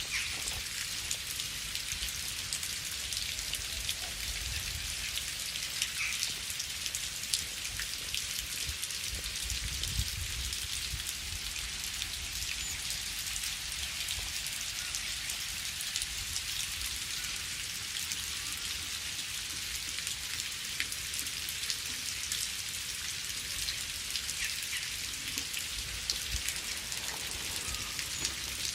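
Steady rain falling: an even hiss of drops with many small individual patters, over a faint low rumble.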